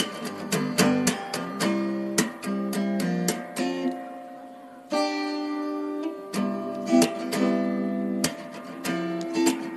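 Background music of strummed and plucked acoustic guitar. A chord rings out and fades about four seconds in, and the strumming resumes about a second later.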